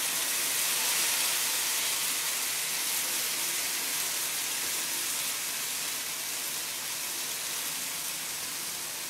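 Mung bean pancake batter sizzling in a frying pan, a steady hiss that eases slightly toward the end.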